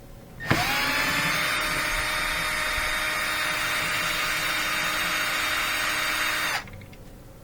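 Cordless power driver spinning out a Torx screw: the motor spins up in about half a second, runs steadily for about six seconds and stops suddenly.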